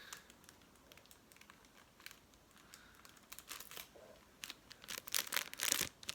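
Crinkling and crackling of something being handled, starting about three seconds in and getting louder and busier toward the end.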